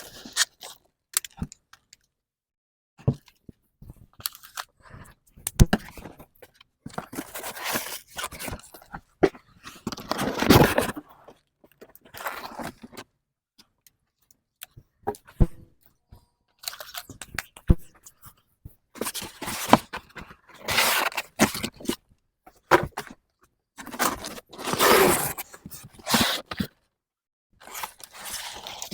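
A shipping box of plant liner trays being opened and unpacked: irregular crunching, scraping and tearing of cardboard and packing material, with sharp clicks between.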